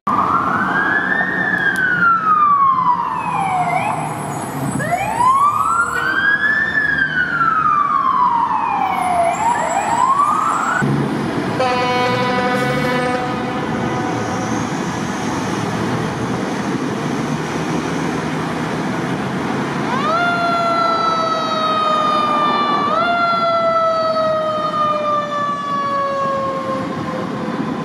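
Fire engine siren wailing, each cycle winding up quickly and sliding down slowly; it cuts off suddenly about eleven seconds in. A steady air horn blast follows, lasting about two seconds. The siren's wail starts again about twenty seconds in, over traffic noise.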